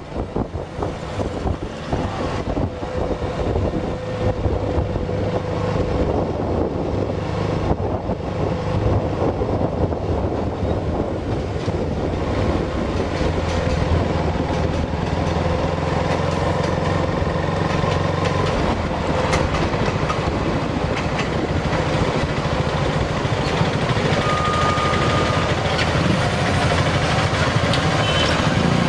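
Motorbike engine running steadily under wind and road noise, heard from the bike itself while it rides through traffic.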